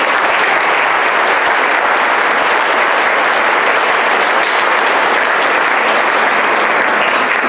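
Audience applauding: many hands clapping together, steady and loud throughout.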